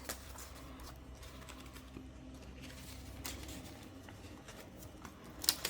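Quiet handling of paper cash and savings envelopes: faint rustling with a few soft clicks and taps, the sharpest near the end, over a low steady room hum.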